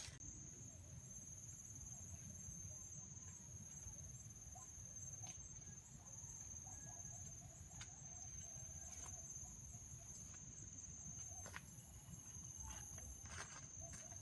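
Faint forest ambience: insects drone steadily at a high pitch, with a higher chirring that comes in stretches of about two seconds with short breaks, over a low rumble. There are a few faint ticks, as of twigs or steps.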